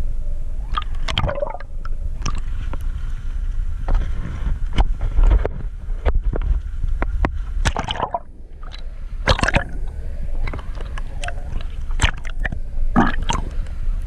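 Water rushing and gurgling around an underwater camera housing as it moves up through the sea, with a constant low rumble and irregular knocks and clicks against the housing. The camera breaks the surface near the end.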